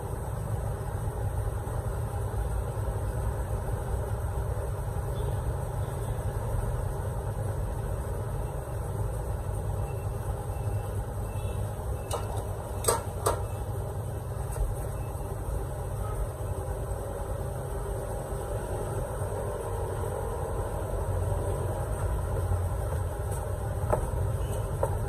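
Steady low background rumble, with two sharp metallic clicks close together about halfway through as a metal paint cup is fitted onto an Iwata spray gun, and a lighter click near the end.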